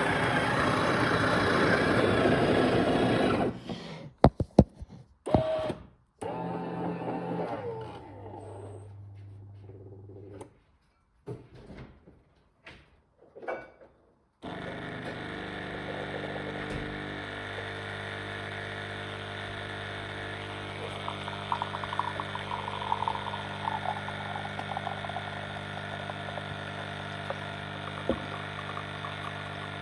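Smeg bean-to-cup coffee machine making a longer coffee: a loud grinding noise for the first few seconds, a few knocks, then from about halfway a steady humming of the pump as it brews.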